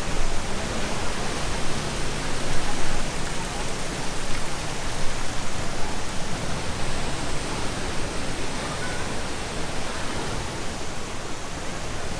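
Loud, steady roar of a waterfall's falling water, an even rush with no breaks.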